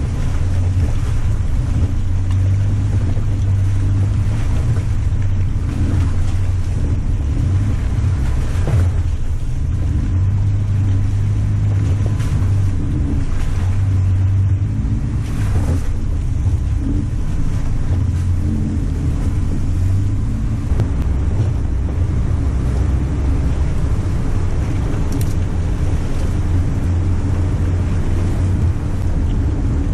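Jeep driving over an off-road trail: a steady low engine and drivetrain rumble, with a few knocks from the rough ground.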